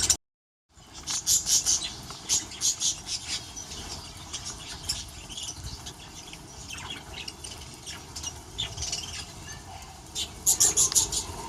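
Small aviary birds chirping: a scatter of short, high chirps, with a denser burst of chirping near the end.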